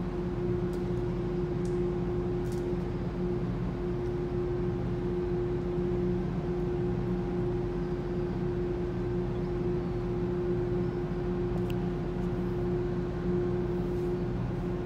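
Steady hum of a moored ship's machinery: a constant low drone with a clear, unwavering tone held above it.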